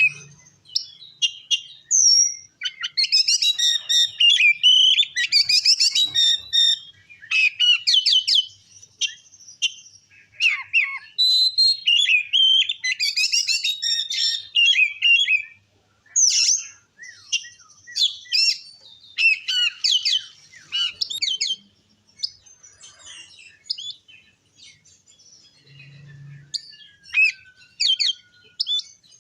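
Oriental magpie-robin (kacer) singing a varied song of rapid chirps, trills and whistles in dense phrases, which thin to sparser calls in the last few seconds.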